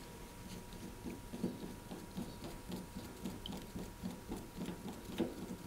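Hand screwdriver turning a screw into the cooker's metal side panel to secure the ceramic hob top. It makes faint, scratchy ticks, about three a second.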